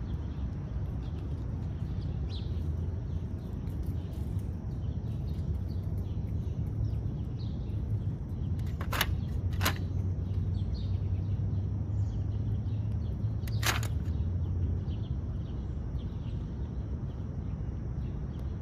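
Outdoor background of a steady low hum with faint bird chirps scattered throughout. Three sharp clicks stand out, two about nine and ten seconds in and one a few seconds later.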